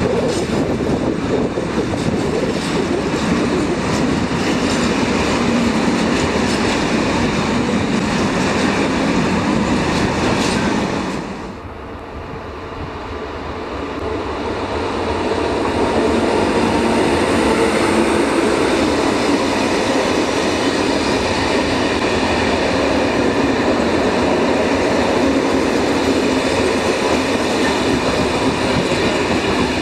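A freight train of empty steel stake flat wagons rolling past on the rails, wheels clattering. About eleven seconds in the sound drops suddenly, then builds again over a few seconds as a locomotive-hauled passenger train comes by and its coaches roll past.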